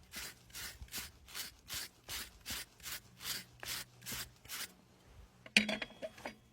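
Farrier's rasp filing a horse's hoof in even back-and-forth strokes, about three a second, stopping after about four and a half seconds; a sharp loud knock follows near the end.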